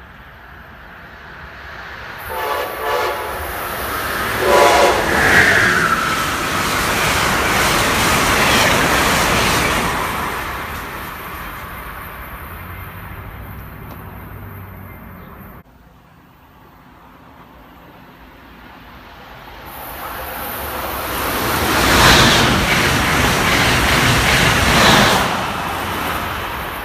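Electric train sounds its horn twice as it approaches, then passes at speed with a loud rush of wheel and wind noise that fades away. After a sudden break, another train passes at speed, building to a loud peak and then dying down.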